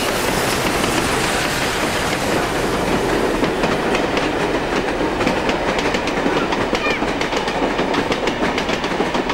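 Carriages of a steam-hauled passenger train rolling past: a steady rush at first, then rapid, regular clicking of the wheels over the rail joints from about a third of the way in.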